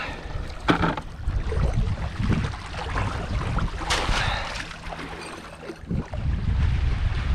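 A crayfish lift net is handled and dropped back into the reservoir, with a few knocks and a splash about four seconds in as it goes into the water. Wind rumbles on the microphone near the end.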